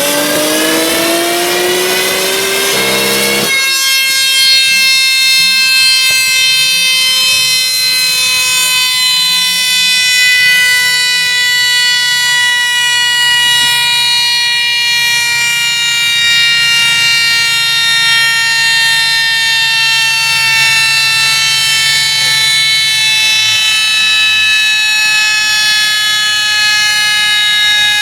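A turbocharged VR6 car engine rising steadily in pitch under acceleration, cut off abruptly about three and a half seconds in. A high, many-toned whine follows and falls slowly and evenly in pitch as the car winds down.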